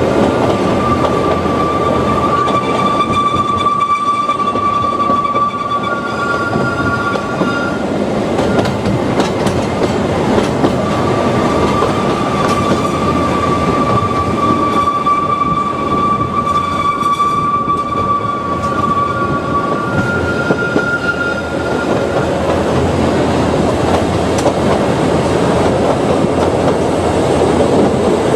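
An Ōigawa Railway Ikawa Line train running steadily over the rails, with clatter from the wheels. Long high-pitched squeals come and go over it, one in the first third and another through the middle, typical of wheel flanges squealing on tight curves.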